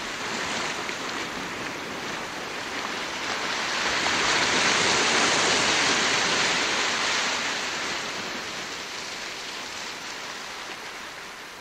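Surf noise of a wave washing in: a steady rush that swells to a peak about five seconds in and slowly ebbs away.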